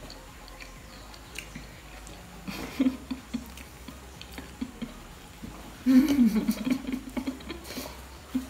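Chewing on mouthfuls of submarine sandwich, with small wet mouth clicks. Short closed-mouth 'mm' vocal sounds come from about two and a half seconds in, and a longer, louder run of them about six seconds in.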